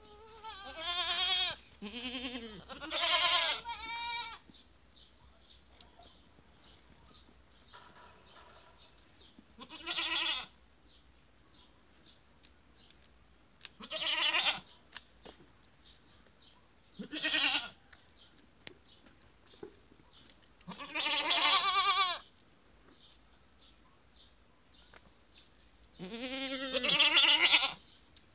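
Goats bleating, about nine calls with a wavering pitch: several in quick succession at the start, then single bleats every few seconds, with longer, louder ones near the end.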